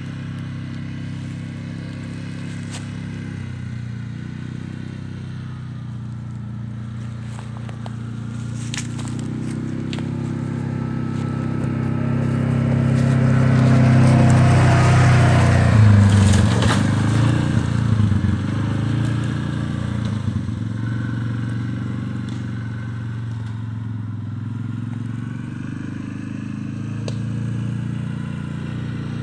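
Side-by-side UTV engine running as the vehicle drives by. It grows louder as the UTV passes close, about halfway through, then fades as it moves away.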